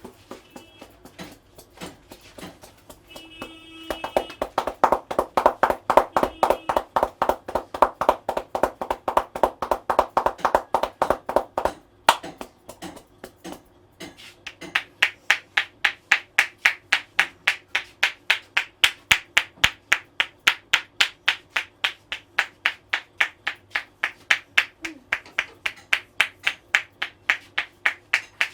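Percussive Indian head massage: hands striking the head in a fast, even rhythm of several slaps a second. The strikes sound dull and hollow at first, then after a short pause turn sharper and brighter, like clapping.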